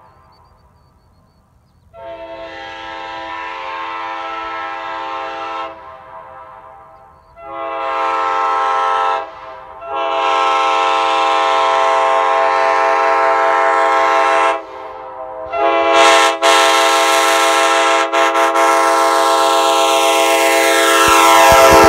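Nathan K5LA five-chime airchime train horn, with 1980s bells, sounding its chord in five blasts: a long one, a short one, a long one, a short one, then a long one that is still going at the end. The pitch of the last blast falls over its final few seconds.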